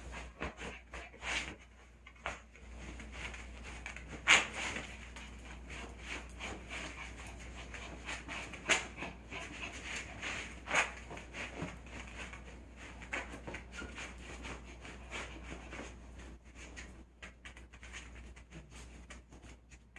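A small poodle sniffing and pawing through fabric blankets, with irregular rustling, scratching and snuffling as it hunts for a hidden toy; a few louder rustles stand out about four, nine and eleven seconds in.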